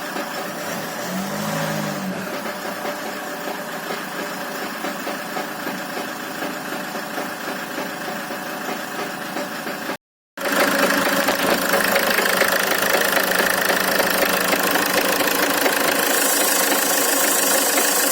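Land Rover Freelander 2's four-cylinder diesel engine running steadily with a knock whose cause is unknown: the valves, rockers, injectors, compression and timing marks check out and there are no fault codes. About ten seconds in the sound cuts out for a moment, then comes back louder and brighter.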